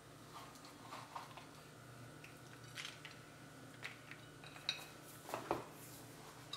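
Faint, scattered light taps and clinks of fingers and a small glass bowl while chopped pistachios are sprinkled by hand over a salad plate, with a couple of slightly louder knocks about five seconds in.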